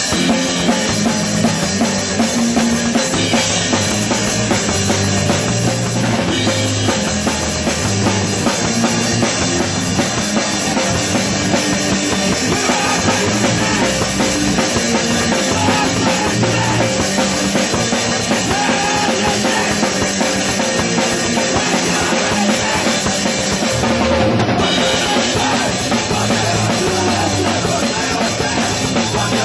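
Live rock band playing loud, with a full drum kit, kick and snare up front, driving the song.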